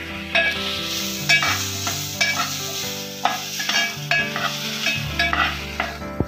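Steel spatula stirring and scraping grated coconut and onion around an aluminium pot, about one stroke a second, over a light sizzle of frying. The mixture is being sautéed in oil with tempering spices.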